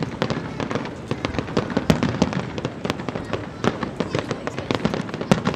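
Fireworks display: a rapid, unbroken string of bangs and crackles, several a second.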